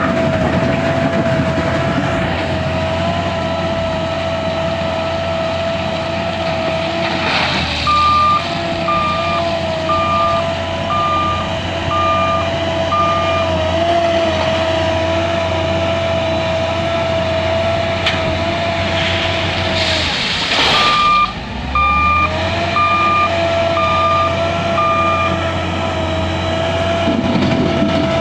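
L&T 9020 wheel loader's diesel engine running steadily with a high whine, while its reversing alarm beeps in two runs of about six beeps each. Just before each run, a short burst of noise breaks in and the engine tone dips, then climbs back.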